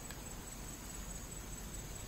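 A steady, high-pitched insect drone, like crickets, held on one tone over a faint low rumble.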